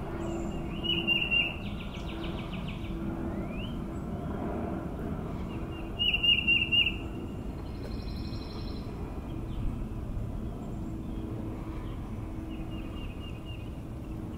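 Small birds calling in the tree: two loud bursts of rapid, repeated chips about a second in and about six seconds in, with scattered upward-sliding notes and softer trills between. The noise is taken for the birds guarding a nest against a black rat snake climbing toward it.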